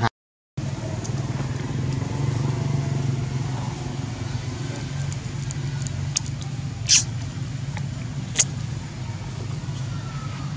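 A motor running steadily with a low, even hum; it cuts out for about half a second right at the start. Twice past the middle, about a second and a half apart, there is a short sharp high sound.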